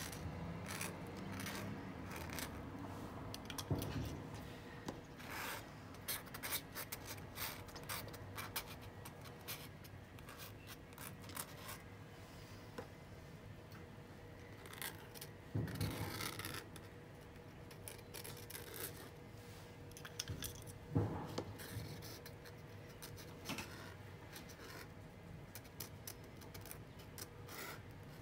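A fine brush scratching and dragging ink across textured watercolour paper in many short, light strokes. There are a few louder knocks: about four seconds in, around the middle, and about two-thirds of the way through.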